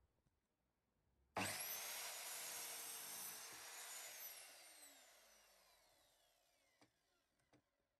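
Electric mitre saw switched on about a second and a half in, its blade brought down through a pine batten, then released to spin down with a long falling whine. Two light clicks near the end.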